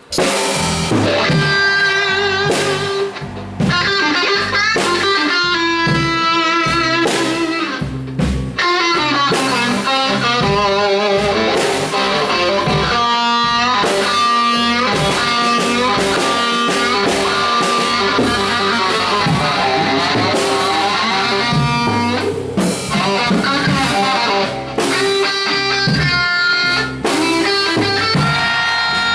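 Live band music led by electric guitar, with a drum kit keeping the beat, starting abruptly at once.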